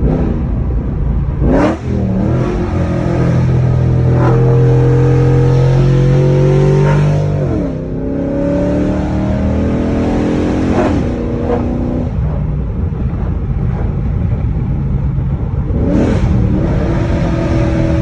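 Chrysler 300C engine and exhaust on the move, revs holding, dropping off and climbing again with several gear changes.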